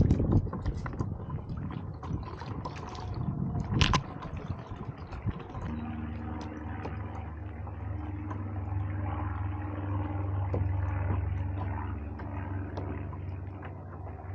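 Water splashing and lapping around a kayak, with wind on the microphone and a sharp knock about four seconds in. From about six seconds a steady low hum runs under the water sound.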